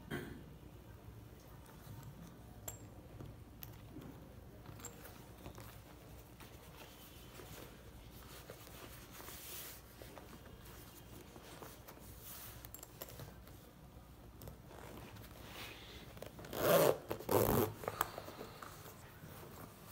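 Metal zipper on a sheepskin leather biker jacket being run by hand: two quick, loud zips near the end, with a few fainter zipper strokes and soft handling of the leather before them.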